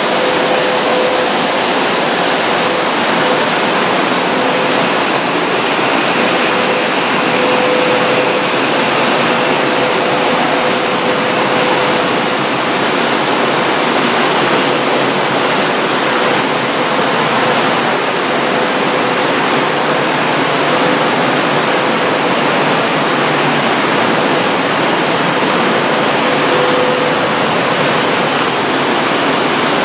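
Kobe Municipal Subway train running, a steady, loud rushing of wheels and air with a faint tone that comes and goes.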